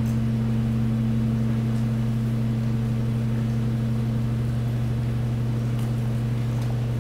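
Hydraulic garbage compaction press running with a steady low hum, pushing the heap of waste. A couple of faint crackles come near the end.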